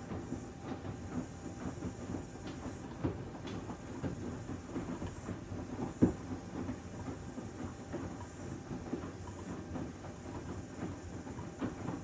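Panasonic VX6 StainMaster+ front-loading washing machine in the main wash of its Mud programme: the drum tumbling the load with a continuous rumble and irregular soft knocks, one louder thump about halfway through.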